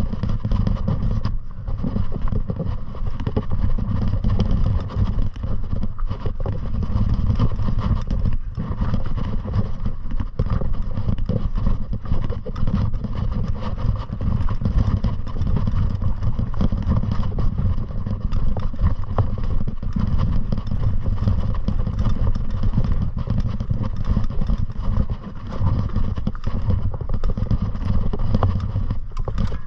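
Wind buffeting the microphone in a steady low rush during a fast downhill run, with a constant stream of small clatters and scrapes.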